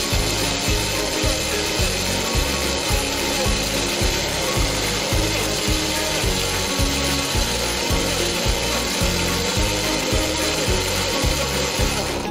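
Small personal blender motor running steadily, whirring apple and carrots into juice, then cutting off at the end. Background music with a steady low beat plays underneath.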